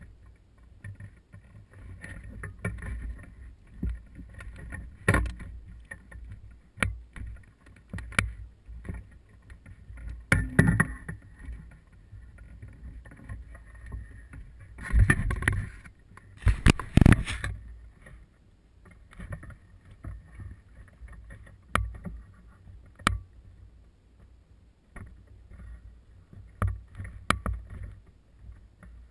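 Small fishing boat on a lake: scattered knocks and clicks of gear handled against the hull over a low rumble, with a few louder stretches of clatter about a third and halfway in.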